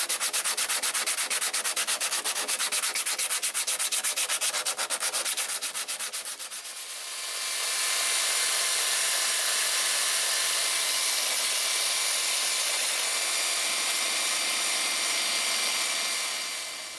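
Sandpaper rubbed by hand back and forth over rusted sheet steel, about eight quick strokes a second, to take off surface rust. It stops about six seconds in, and a second later a cordless drill spinning a wire wheel brush scours the rust with a steady whine, which cuts off near the end.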